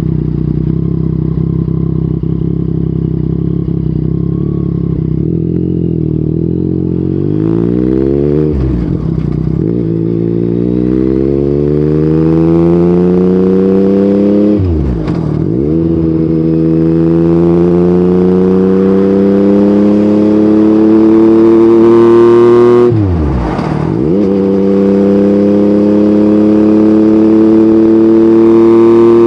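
Yamaha MT-09's three-cylinder engine through an Akrapovic exhaust, holding a steady note for several seconds, then pulling hard with the pitch rising. Three upshifts come about 9, 15 and 23.5 seconds in, each a quick drop in pitch before it climbs again.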